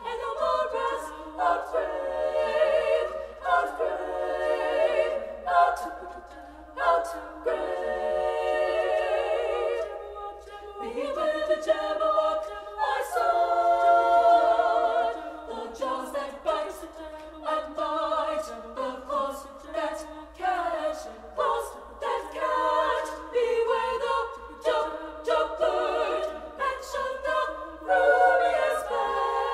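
Girls' choir singing a cappella in several-part harmony, without accompaniment, in phrases separated by brief breaks.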